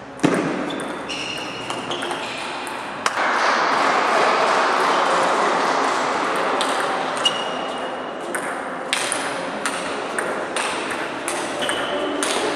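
Table tennis rally: the ball clicking off the bats and the table, with short high squeaks, over steady background noise in the hall.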